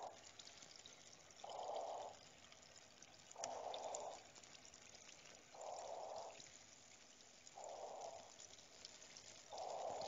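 Faint trickling and dripping water with scattered tiny drip ticks, under a soft rushing swell that repeats evenly about every two seconds.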